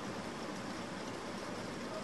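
Rain falling steadily, an even hiss with no thunder or separate drops standing out.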